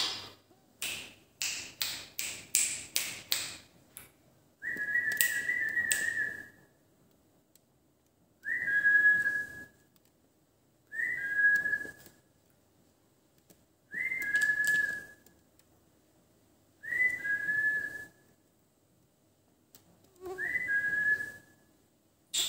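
Indian ring-necked parakeet (rose-ringed parakeet) whistling the same short note about six times, roughly every three seconds, each note opening with a brief harsh burst and settling slightly lower. A quick run of short sharp calls comes just before the first note.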